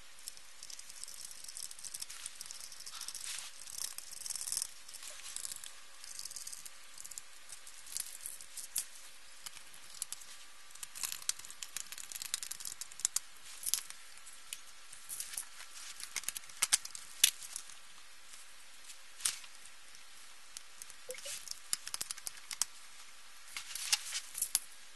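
Handling noises from reassembling an LCD monitor: its perforated sheet-metal shield and panel being moved, lifted and set down, with scattered clicks, light taps and rustling scrapes. The sharpest clicks come about two thirds of the way through.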